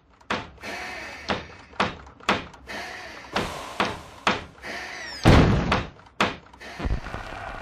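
A run of irregular knocks and bangs, roughly two a second, with a heavy wooden door slamming shut about five seconds in.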